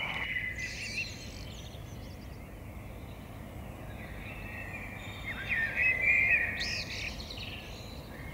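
Birds singing: bursts of chirping, whistled phrases, loudest about six seconds in, over a steady low background noise.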